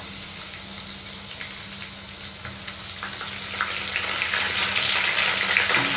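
Garlic, green chillies and fresh curry leaves frying in hot oil in a kadai: a steady sizzle with many small crackles and pops, growing louder in the second half as the garlic turns golden brown.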